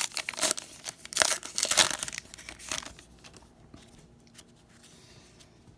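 Crinkly wrapper of a pack of baseball cards being torn open and crumpled, with sharp crackles for the first three seconds, then quieter handling.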